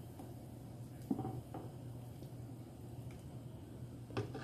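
Faint stirring of thick blended hot sauce in a stainless steel pot with a silicone spoon, with a few soft squishes and taps about a second in and near the end, over a low steady hum.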